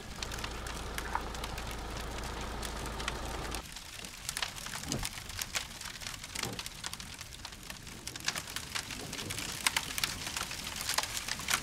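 Bushfire burning through dry grass and scrub: a dense, irregular crackling and popping of burning vegetation, many sharp cracks a second. For the first three and a half seconds a steady low rumble sits under it, then cuts off abruptly.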